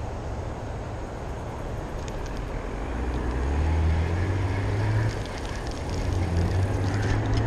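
Spinning reel being cranked to retrieve a lure, with faint quick mechanical ticks from its gears, under a louder low rumble that swells about three seconds in.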